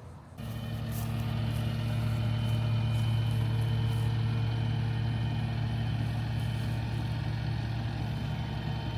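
A diesel-type vehicle engine running steadily with a deep, even hum, starting abruptly about half a second in.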